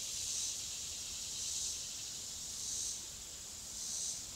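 Insects in the surrounding trees buzzing in a steady high chorus that swells and fades about once a second.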